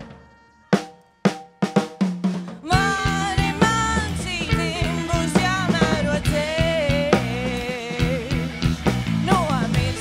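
Rock band music: a handful of separate drum-kit hits, then the full band comes in about two and a half seconds in with a lead melody over bass and drums.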